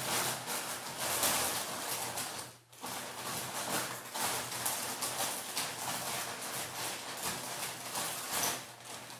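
Irregular clicking and clattering of small spring clamps being handled and clipped on to press a freshly glued phone screen down, with a brief pause about two and a half seconds in.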